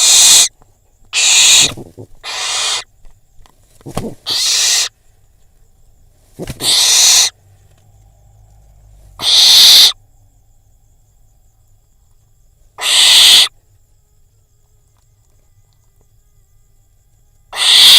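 Barn owl calling with harsh, hissing screeches: about eight separate calls, each under a second long, spaced irregularly.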